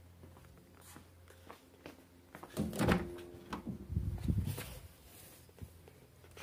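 A car's rear door being swung open and handled: a few light knocks, then two short clusters of knocks and rustling.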